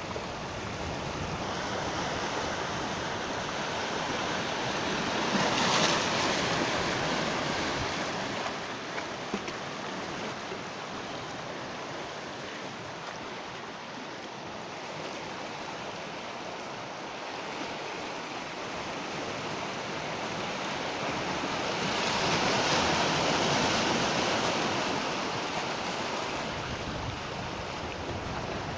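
Sea waves breaking and washing on the shore, a steady surf hiss that swells twice, once about six seconds in and again about twenty-three seconds in.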